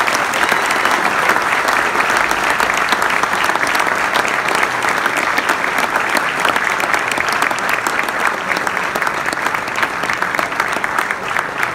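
Banquet audience applauding: many people clapping steadily, easing slightly near the end.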